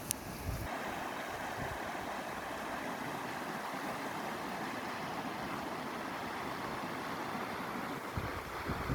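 Steady rushing noise, with wind buffeting the microphone in the first moment and again near the end.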